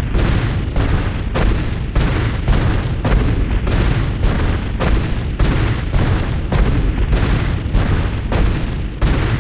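Sound effect of heavy dinosaur footsteps: a fast, even run of deep booming stomps, about two a second, over a continuous low rumble.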